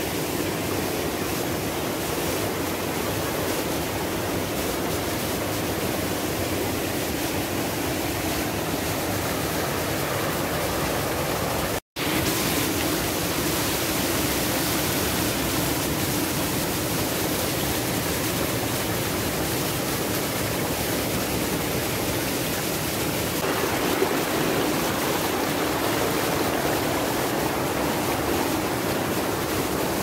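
Steady rush of a waterfall and rocky stream cascading over boulders. It cuts out for an instant about twelve seconds in, and there is one short click near twenty-four seconds in.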